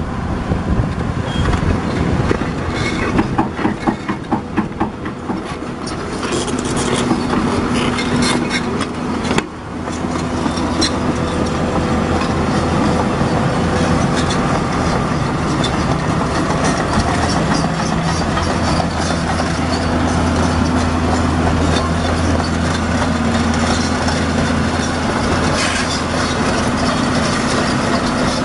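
Komatsu Avance crawler excavator's diesel engine running as the machine travels on its steel tracks, the track plates clanking and rattling. A fast clatter fills the first several seconds, then a steadier engine hum carries on under the track noise.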